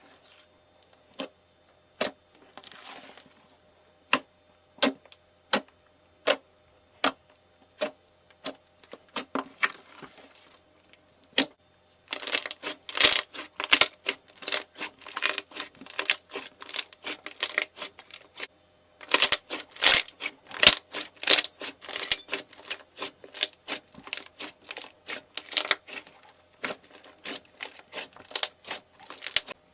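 Crisp snapping and crackling of something crunchy being crushed: scattered single snaps at first, then dense runs of crackling in the second half.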